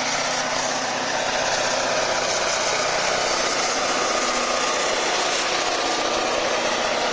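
A freight train passing, led by two EMD diesel locomotives, a GP38-2 and a GP39-2, with their engines running as they go by, then freight cars rolling past on the rails. The sound is loud and steady.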